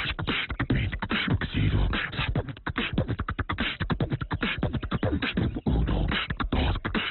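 A person beatboxing: a fast, loud run of mouth-made drum beats, deep thumps and clicks, which stops abruptly.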